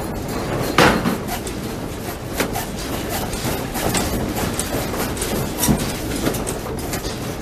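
A room rattling in a strong earthquake: sliding fusuma doors and fittings clattering and knocking continuously, with a louder knock about a second in.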